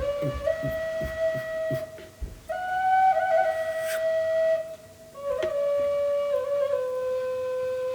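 Slow melody on an IAMSOUND A4 triple drone flute, in long held notes that step between pitches. The notes break off briefly about two seconds in and again near five seconds.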